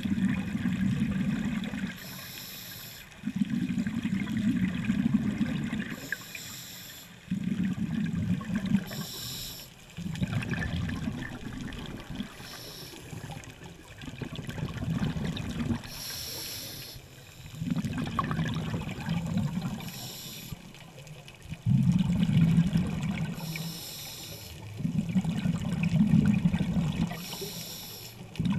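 A scuba diver breathing through a regulator underwater. Each breath is a short hiss on the inhale, then a longer, louder burst of bubbling as the exhaled air escapes, repeating about every three to four seconds.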